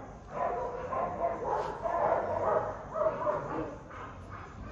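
Animals calling: a string of short pitched cries in quick succession, thinning out near the end.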